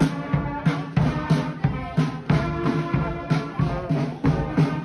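Marching brass band playing a tune over a steady drum beat of about three beats a second.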